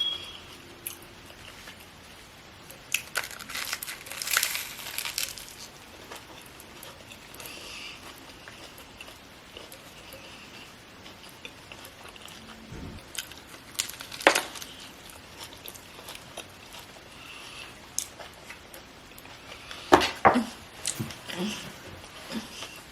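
Close-miked mukbang eating of a BLT sandwich on oven-toasted bread: quiet chewing broken by scattered crunchy bites and crinkles, the sharpest about fourteen seconds in and again near the end.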